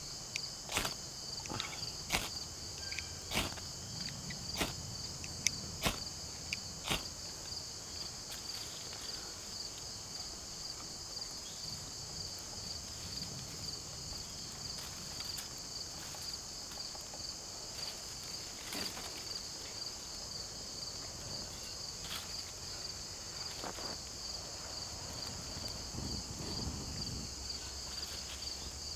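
A steady, high-pitched insect chorus drones throughout. Over it come sharp scraping strikes of a ferro rod throwing sparks into tinder, several in the first seven seconds, then a few scattered clicks.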